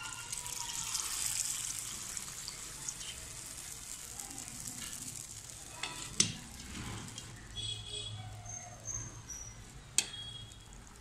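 Hot seasoning scraped with a spatula from an iron kadai onto rice in a steel plate, with a hiss for the first few seconds, for tamarind rice. Two sharp metal clanks, about six and ten seconds in, are the loudest sounds.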